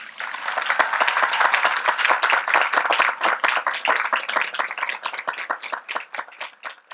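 Crowd applauding: a dense wash of clapping that thins out into scattered separate claps and fades near the end.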